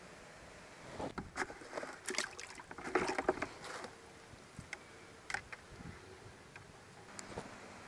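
Water splashing and sloshing in a plastic bucket as a small largemouth bass is put in. A quick cluster of splashes and knocks comes about a second in, loudest around the third second, then a few scattered splashes.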